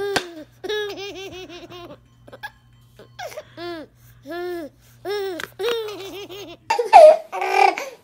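A baby laughing in repeated bursts of quick, high-pitched giggles with short pauses between them. Near the end, louder squealing takes over and is the loudest part.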